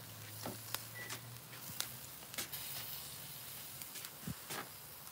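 Meat sizzling on a barbecue grill, with scattered sharp clicks of metal tongs as the sausages and meat are handled and turned.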